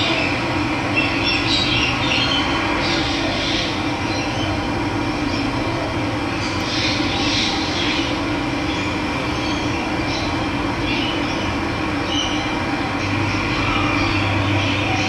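Steady rushing of running water, with a few faint bird calls over it now and then.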